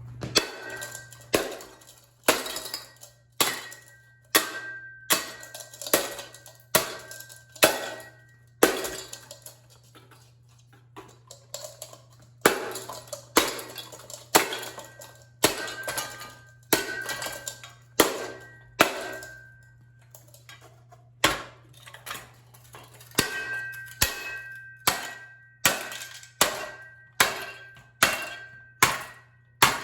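Repeated blows smashing a Deluxe Showroom ceiling fan: a long series of sharp clangs, about one to two a second with a couple of short pauses. Some strikes leave a brief metallic ring.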